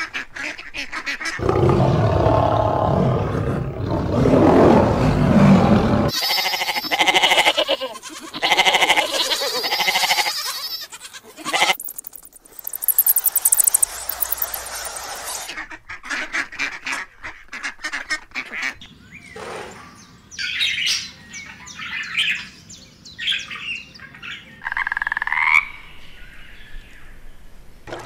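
A run of different animal calls, changing every few seconds, with separate short bird-like calls and chirps in the second half.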